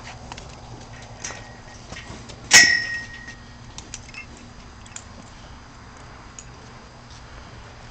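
A single sharp metallic clang about two and a half seconds in that rings on briefly, amid scattered light clicks and knocks.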